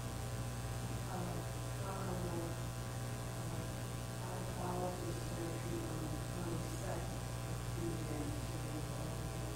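Steady low electrical mains hum from the sound system, with faint distant speech coming and going.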